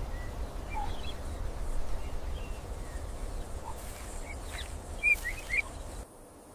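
Outdoor grassland ambience: a steady low rumble with scattered short bird chirps. A few louder chirps come about five seconds in, and the rumble cuts out suddenly near the end.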